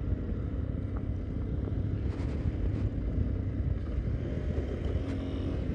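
Yamaha Teneré 250's single-cylinder four-stroke engine running steadily while riding along a dirt road, with wind buffeting the action camera's microphone.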